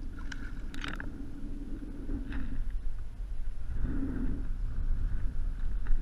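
Wind rumbling on the microphone and choppy water against a kayak hull, with a few light knocks.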